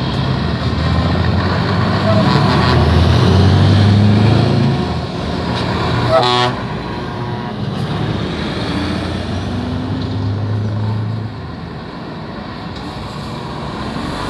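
Heavy truck diesel engines pulling away, a Scania R-series tractor unit and then a Mercedes-Benz Actros, running loud for the first five seconds and again a few seconds later. A short horn blast sounds about six seconds in.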